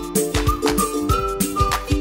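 Upbeat background music with a steady beat of about two strikes a second under held chords and a higher melody line.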